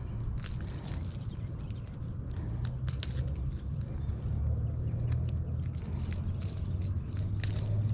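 Scattered small clicks and crunches of a lipless crankbait and its hooks being worked free from a bass's mouth, over a low, steady wind rumble on the microphone.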